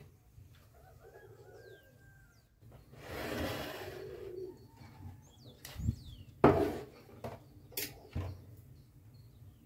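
A dove cooing, with a few faint high bird chirps. From about six seconds in, several sharp knocks as a plate and a cutting board are handled and set down on a wooden table; the loudest knock comes about six and a half seconds in.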